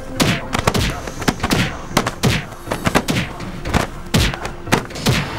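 A rapid, irregular series of heavy thuds and whacks, about three a second, each with a short falling swish.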